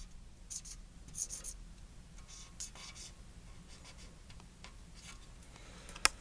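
Writing by hand on paper: several short, faint scratchy pen strokes, then a sharp click near the end.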